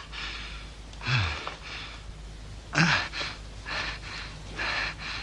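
A man's laboured breathing in distress: a groaning gasp falling in pitch about a second in, another near three seconds, then short breathy gasps.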